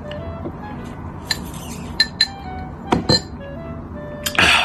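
Background music with several sharp glass clinks from a drinking glass with a metal straw as a drink is sipped, then a loud breathy burst near the end.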